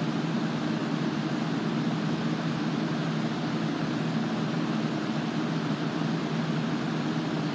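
A fan unit running steadily: a constant rush of air with a low hum.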